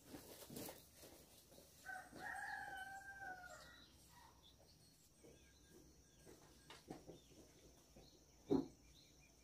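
A rooster crowing once: a single drawn-out call of about two seconds, starting about two seconds in. A sharp knock near the end is the loudest sound.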